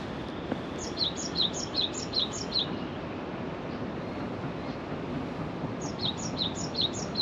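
A small songbird singing a quick run of five high chirps, each a short downward slide, then after a pause a second run of four, over steady background noise.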